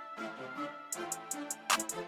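Instrumental music: a keyboard melody, with quick hi-hat ticks coming in about halfway and a loud drum hit near the end.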